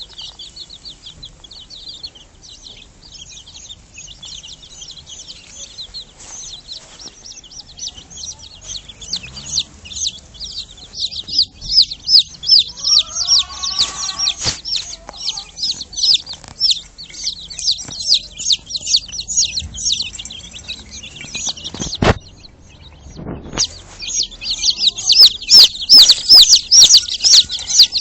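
Chickens peeping in a dense, rapid chorus of high, falling calls, with a brief lower call about halfway through. Near the end a knock and a second's pause, then the peeping resumes louder.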